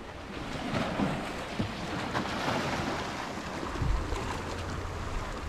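Small sea waves washing over a rocky shore, with wind buffeting the microphone, heavier from about four seconds in.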